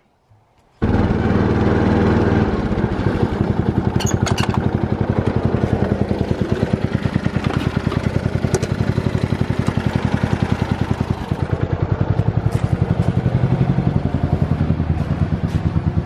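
Ride-on lawn mower engine running, cutting in suddenly about a second in. It is steady for the first second or two, then settles into a fast, even pulsing beat.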